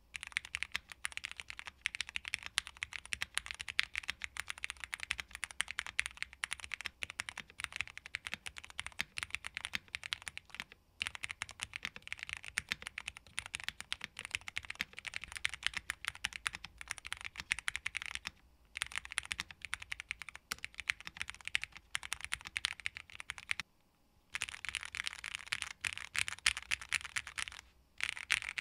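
Continuous fast typing on a Tofu60 2.0 mechanical keyboard with Cherry MX Hyperglide Black linear switches, PBT keycaps and a PC plate: a rapid stream of key clacks, stopping briefly a few times.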